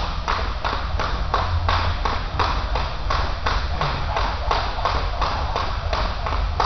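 Jump rope slapping a hard gym floor and sneakers landing on each turn, in an even rhythm of sharp taps about three a second, over a steady low hum.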